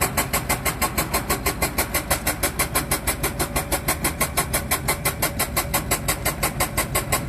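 A small engine running steadily with an even, regular pulsing beat of about seven or eight pulses a second.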